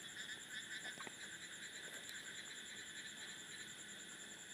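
Quiet background between speech: a faint steady high-pitched hiss with a few thin whining tones, and a soft click about a second in.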